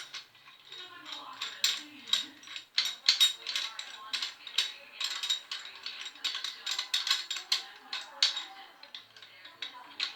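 Hand tools and metal mounting hardware clicking and clinking in quick irregular runs as a motor mount is fastened to a BMX bike frame.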